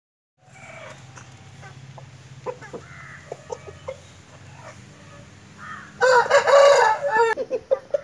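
A rooster gives a few short clucks, then crows once, loudly, for about a second and a half near the end.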